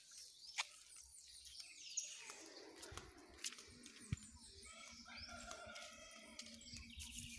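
Quiet outdoor ambience with birds chirping faintly and a few soft clicks.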